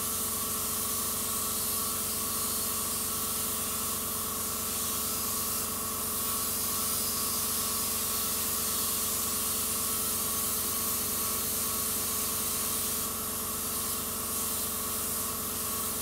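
Badger Patriot airbrush spraying white paint at low pressure in a light dusting: a steady hiss of air over a steady hum.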